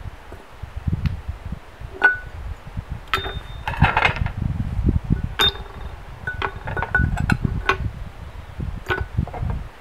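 Metal pieces clinking as they are dropped one by one into a crucible and knocked against its rim: a series of sharp clinks, several with a brief ringing tone.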